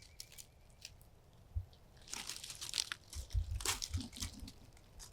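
Crunching, crinkling rustle that grows denser about two seconds in, with a few low thumps.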